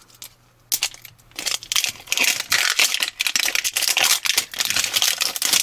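Plastic wrapper crinkling and tearing as it is peeled off a 5 Surprise toy ball. A dense run of crackles begins under a second in.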